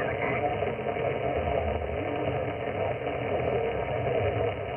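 HF transceiver's loudspeaker giving 10-metre band noise while tuning in upper sideband: a steady hiss that the receiver's sideband filter cuts off above about 3 kHz.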